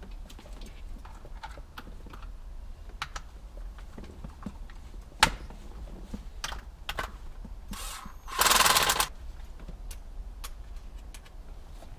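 Scattered clicks and knocks of plastic wiring-harness junction blocks being pressed together and handled, with one sharp snap about five seconds in and a short rasping burst of about a second a little later.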